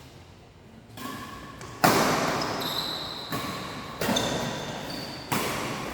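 Badminton rally: about five sharp racket strikes on the shuttlecock, roughly a second apart, ringing in a large hall. Short high squeaks of shoes on the court floor come between the strikes.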